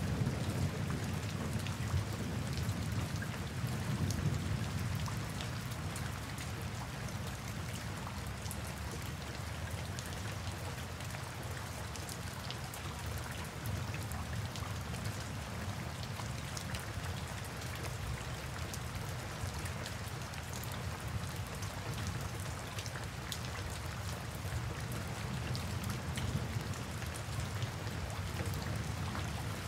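Steady rain falling, with a haze of individual drop hits. A low rumble of thunder dies away over the first few seconds.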